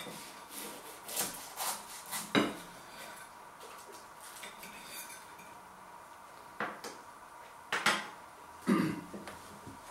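A knife and fork cutting through a baked pastry pie on a plate, the blade scraping and clinking against the plate in a series of sharp clicks, the loudest about two and a half seconds in and a few more in the second half.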